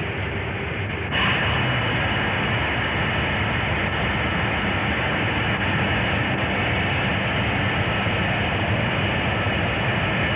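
Steady rumbling noise with no clear rhythm or tone, which steps up louder suddenly about a second in.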